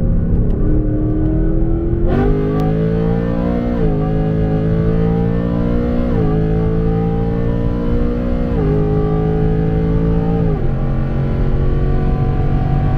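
Ford S650 Mustang GT's 5.0 L Coyote V8, breathing through long-tube headers and an X-pipe, under hard acceleration. The engine note jumps louder about two seconds in as the throttle opens, then climbs and drops back at each upshift, four shifts roughly two to two and a half seconds apart, before settling into a steadier drone near the end.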